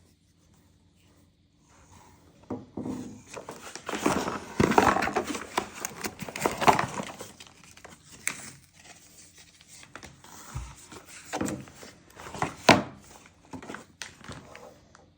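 Unboxing packaging and contents being handled: irregular crinkling and rustling that starts about two seconds in, with a few sharp clicks and knocks near the end.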